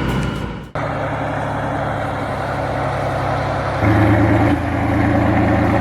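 Large diesel engine of a piece of heavy machinery running steadily, then growing louder about four seconds in as it is put under more throttle. A sudden cut comes just under a second in.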